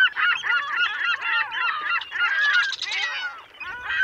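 Herring gull calling: a fast run of loud call notes that bend up and down in pitch, which stops a little past three seconds in, with one short call near the end.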